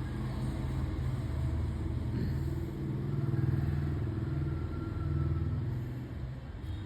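A passing motor vehicle's engine rumbles, growing louder around the middle and fading near the end.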